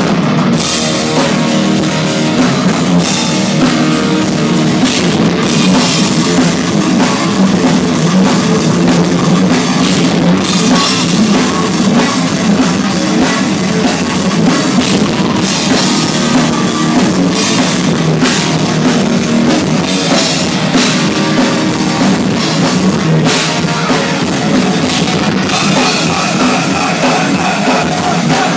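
Thrash metal band playing live: distorted electric guitars riffing over a drum kit, with repeated cymbal crashes, loud and steady throughout.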